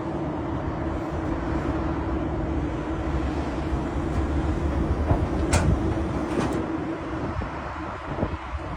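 Hitachi 890 excavator travelling on its crawler tracks: a steady engine-and-hydraulic drone with a held tone and deep rumble, and two sharp clanks about five and a half and six and a half seconds in.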